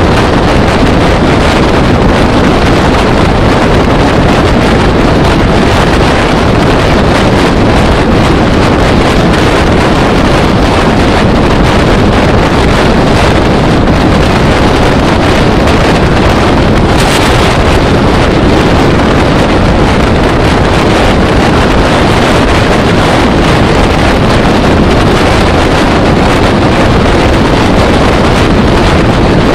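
Steady, heavy wind rushing over the microphone of a camera moving along an open road, over the low rumble of the vehicle carrying it.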